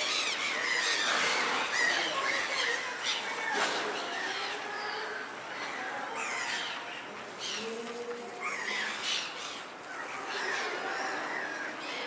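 Seagulls squawking, many short calls overlapping one another.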